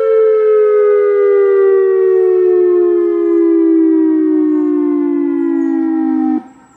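Federal Signal EOWS-1212 electronic outdoor warning siren sounding a loud wail that falls slowly in pitch, then cuts off abruptly near the end.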